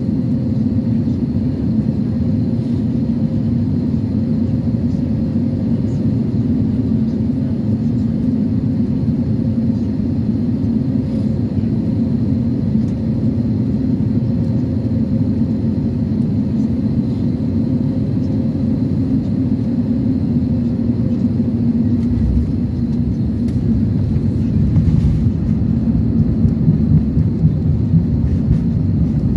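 Cabin noise of an Airbus A320neo on final approach, heard from a window seat over the wing: a steady engine and airflow hum with a held tone. About twenty seconds in the tone fades and a rougher, louder rumble takes over as the jet touches down and rolls along the runway, growing louder near the end.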